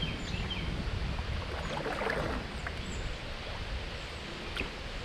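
Canoe paddling on a river: a paddle stroke swishes through the water about two seconds in, over a steady low rumble of water and wind. A few faint bird chirps come near the start.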